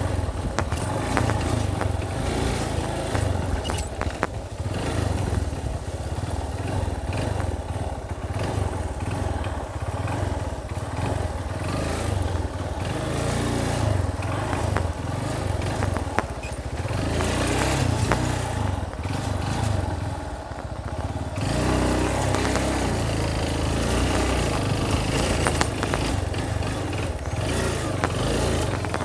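Motorcycle engine running under way on a rough dirt trail, with frequent rattles and knocks from the bike over the bumps.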